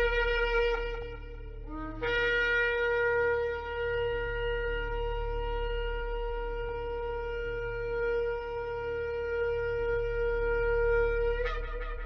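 Shofar blown in long sustained blasts. A first note stops about a second and a half in, followed by a brief lower note. Then comes a long steady blast of about nine seconds that breaks upward in pitch near the end.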